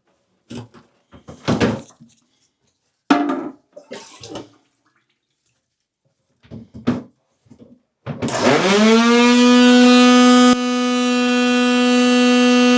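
Shop vac handled with scattered clatters and knocks, then switched on about eight seconds in: its motor spins up in a quick rising whine and settles into a steady loud hum with a buzzy, many-toned edge, running to suck the water out of the toilet tank.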